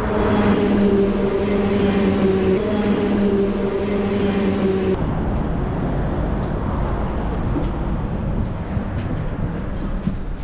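Electric passenger train pulling into the platform, a steady hum from its electric drive over a low rumble; the hum cuts off about halfway through. A low, even rumble of the stationary train and platform follows.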